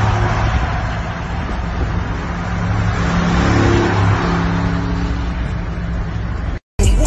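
Highway driving noise: a steady rush of tyre and wind noise with a low engine drone from cars at speed, including a Mercedes G-Class SUV in the next lane. The sound cuts out abruptly near the end.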